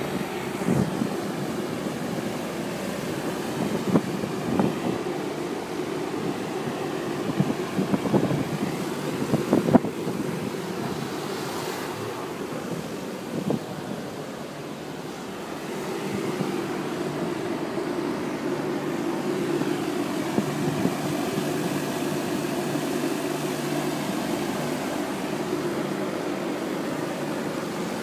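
Harbour-side ambience at a ferry quay: a steady low rumble of traffic and moored ships, with a few sharp bumps in the first half, likely wind buffeting the microphone.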